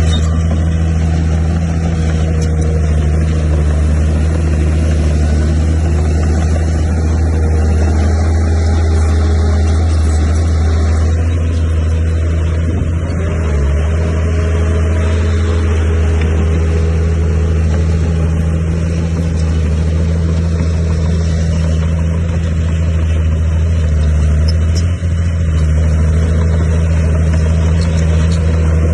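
Heavy diesel engine of earthmoving machinery running steadily under load, with a low, even drone. The sound briefly eases about halfway through and dips once more near the end.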